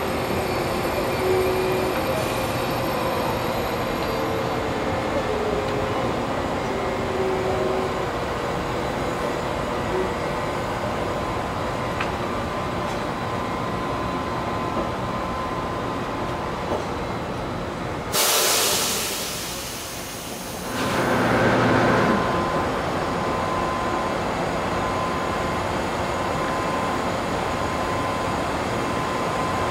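Stationary Seoul Line 1 electric commuter train running steadily at the platform. About 18 seconds in there is a loud burst of compressed-air hiss lasting about two seconds, followed a moment later by a second, shorter and lower hiss. After that a faint, repeating tone sounds over the running noise.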